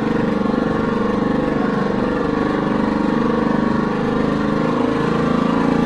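Harbor Freight Predator 79cc single-cylinder four-stroke engine on a motorized bicycle, running steadily while riding, with a slight dip in engine speed about four seconds in.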